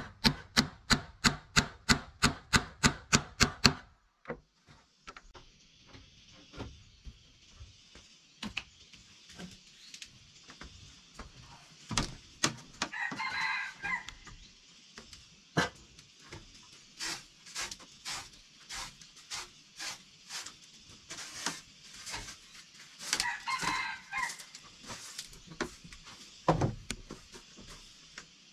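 Quick, evenly spaced strikes of a tool on wood, about five a second, stop about four seconds in. Then a rooster crows twice, about ten seconds apart, over a steady high hiss and scattered light taps.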